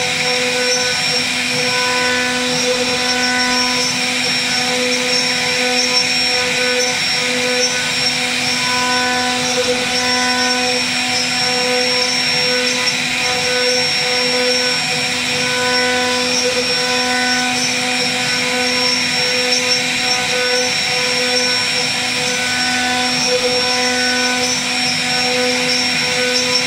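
CNC router spindle running with a steady whine as its bit carves grooves into a wooden door panel, the upper tones coming and going as the cutter's load changes.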